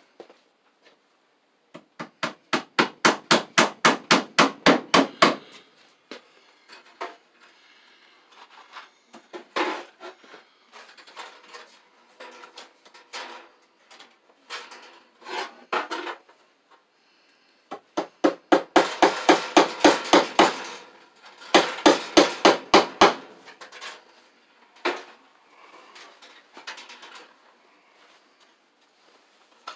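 A hammer tapping cable staples into a wooden joist overhead, in quick runs of light blows about six a second. The longest runs come a couple of seconds in and again about two-thirds of the way through, with shorter groups of taps between.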